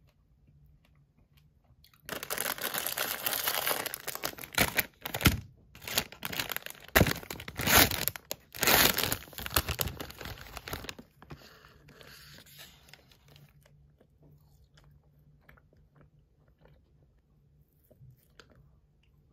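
Plastic food wrapper crinkling loudly as it is torn open and handled, starting about two seconds in and dying away about eleven seconds in.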